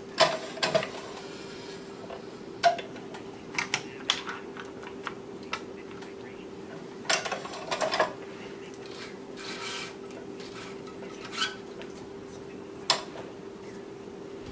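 Scattered metal clicks and clatters from a tennis racquet stringing machine being worked by hand (clamps, tensioner and turntable), some in quick clusters, with a short swishing rustle of string about ten seconds in. A steady low hum runs underneath.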